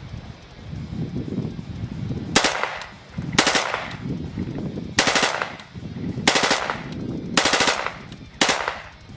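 Windham Weaponry AR-15 in .223 being bump fired from a homemade bump fire stock: six short, rapid bursts of a few shots each, a second or so apart, starting a couple of seconds in.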